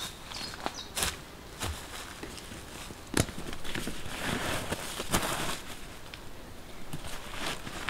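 A few footsteps on the forest floor, then the rustle of a fabric stuff sack being pressed and handled. A couple of sharp knocks come about a second and about three seconds in.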